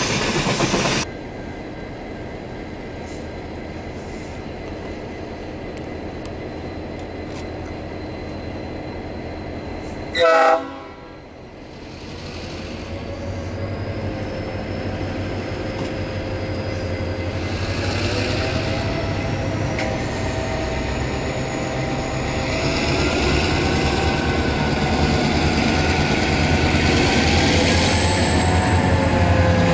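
Diesel freight train: wheel noise of a passing train cuts off about a second in, and a short, loud horn blast sounds about ten seconds in. Then the diesel locomotives approach, their engine rumble growing steadily louder as the engine notes slowly rise in pitch.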